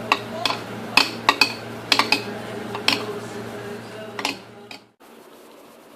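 A utensil clinking against a bowl at irregular intervals while mutton is mixed with a thick masala marinade, over a low steady hum. Both stop abruptly about five seconds in.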